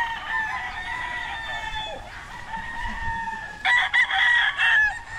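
Gamefowl roosters crowing: one long crow carries through the first couple of seconds, and another louder crow comes about three and a half seconds in.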